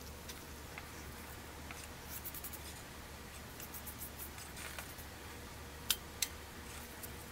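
Faint rustling and small crackling ticks of gloved hands handling loose potting soil, with two sharp clicks about six seconds in, over a low steady hum.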